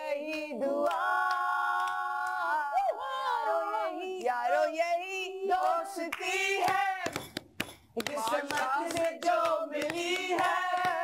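A group of voices singing a Hindi song with no instruments, with hand claps keeping time. A long note is held about a second in, and the clapping is thickest in the second half.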